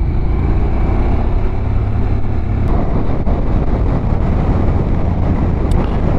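Motorcycle engine running in first gear through a tight hairpin, with a steady low hum and wind noise on the helmet-mounted microphone.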